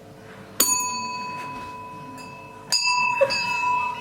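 Service bell struck twice, about half a second in and again near three seconds, each ring a clear bright tone that fades slowly.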